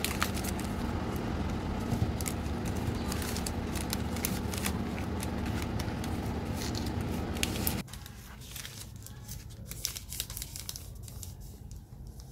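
Plastic chocolate-bar wrappers crinkling and crackling as they are handled, over a steady background noise. The background noise cuts off suddenly about eight seconds in, leaving quieter, sparser crinkles.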